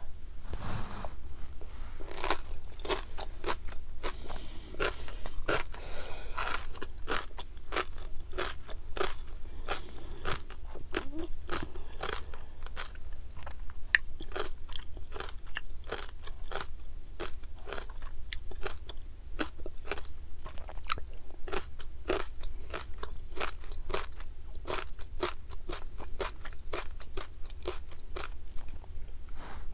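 Close-miked chewing of fish roe, the eggs popping between the teeth as a steady run of sharp little crackles, a few a second.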